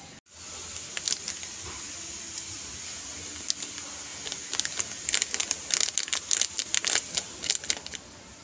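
Thin plastic sachet crinkling in the hands and being snipped open with scissors: a run of sharp crackles and snips, sparse at first and thick in the second half.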